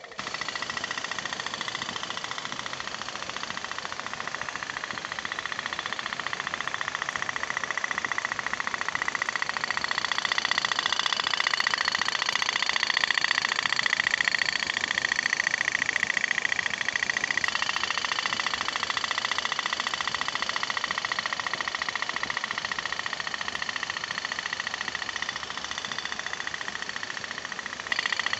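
Toy pop-pop boat running: the rapid, steady putt-putt of its candle-heated steam boiler pulsing water through the exhaust tubes, with a slight change in tone about two-thirds of the way through.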